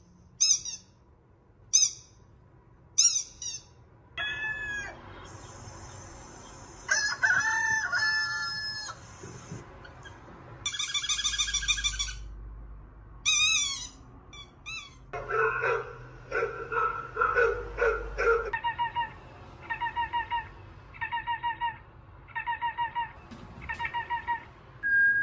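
A string of different short sound effects played for a dog to make it tilt its head: high bird chirps, a rooster crowing and other calls and squeaks, one after another. Near the end comes a ringing tone repeated about six times.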